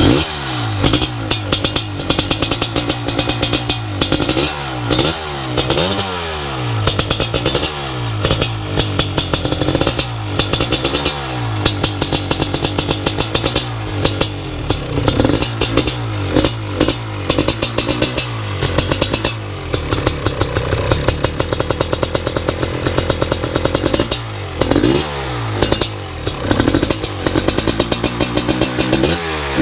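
A BRC 500 engine kit in a dirt bike frame running on its first start-up, with the throttle blipped so the engine revs up and drops back again and again.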